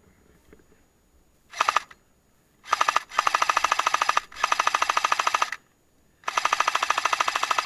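Airsoft light machine gun firing on full auto in rapid, evenly clicking bursts: a short burst about a second and a half in, then several long bursts with brief pauses between them.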